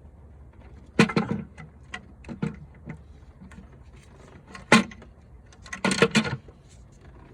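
Scattered knocks and clicks as the intake manifold of a VQ38DD V6 is handled and seated over its locating studs, with a quick run of clatter about six seconds in.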